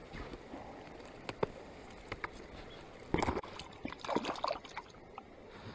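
Water splashing and sloshing in short, irregular bursts, the loudest about three seconds in.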